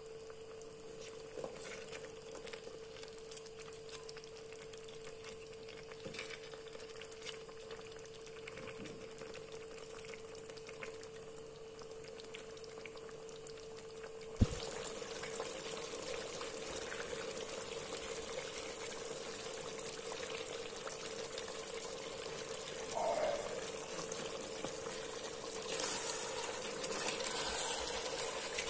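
Curry simmering in an Instant Pot's inner pot: a soft bubbling and sizzling hiss under a faint steady hum. About halfway through there is one sharp click, and after it the bubbling is louder.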